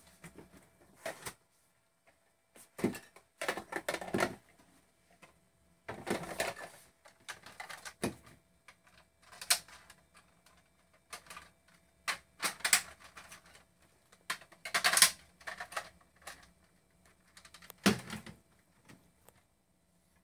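A series of sharp clicks and clacks in irregular clusters, with short quiet gaps between them. The loudest cluster comes about 15 seconds in.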